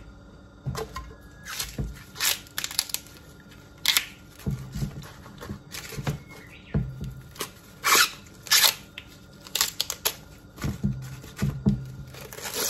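Fresh corn husks being peeled off the cob by hand and laid into an aluminium pot: irregular papery rips and rustles of the green leaves and silk, the sharpest ones about eight seconds in.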